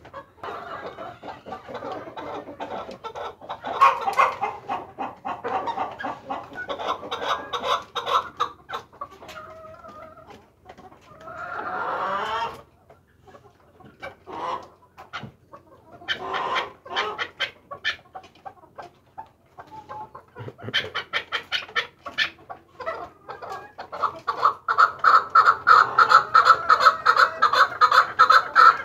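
Kandahari chukar partridge (a male) calling: long runs of rapid, repeated chuk notes that break off near the middle, then build to the loudest and fastest series over the last few seconds.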